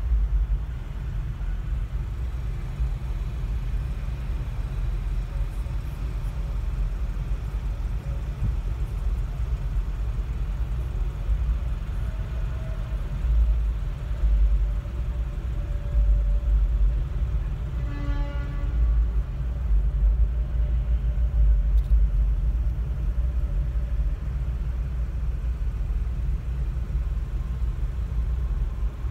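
Steady low rumble of idling and slow-rolling traffic, heard from inside a car's cabin. About two-thirds of the way through, a short pitched sound rises briefly above it.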